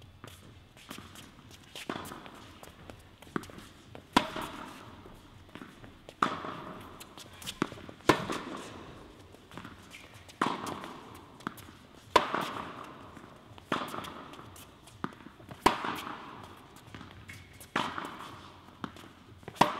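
Tennis rally in an indoor tennis hall: a sharp racket strike on the ball about every two seconds, each ringing out in the hall's echo, with lighter ball bounces between them.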